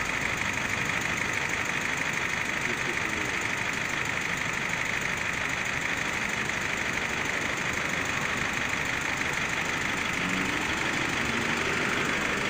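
Gas-fired infrared road-marking heater (PROMARK 100) running, its burners making a steady, even hiss as it heats preformed thermoplastic on asphalt.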